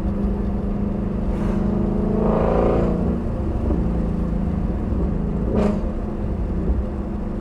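Shelby GT350R's 5.2-litre flat-plane-crank V8 running under way, its revs rising for about a second some two seconds in, then dropping back. One short sharp pop about five and a half seconds in.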